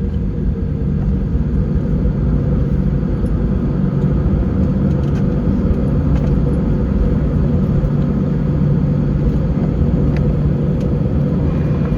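Airbus A320 cabin noise: a steady low rumble of engines and airframe heard from inside the passenger cabin, with a low hum running through it.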